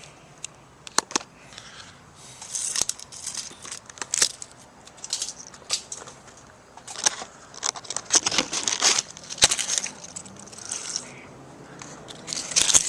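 Leafy tree branches rustling and crackling as they are pulled and dragged off a roof, in irregular bursts with a few sharp snaps or clicks.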